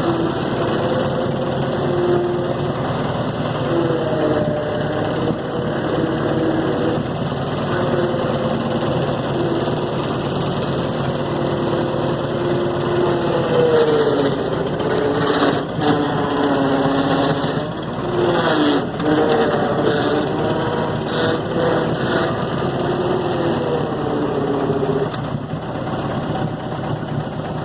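Gehl 4400 skid steer loader's engine running. Its speed dips and recovers several times partway through, and a few sharp knocks are heard.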